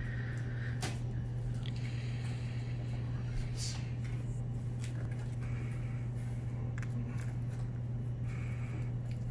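Packing tape on a cardboard box being slit and scraped open with a small hand tool: a few short sharp scrapes and clicks, over a steady low hum.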